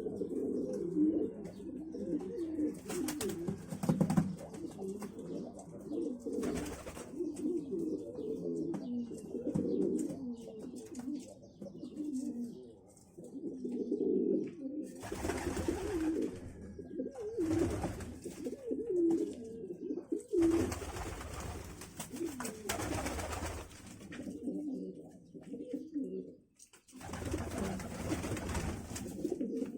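Many pigeons cooing at once, their low calls overlapping without a break, with a few small birds chirping faintly above them. Several times, a second or more of rustling noise or wind on the microphone comes and goes over the cooing.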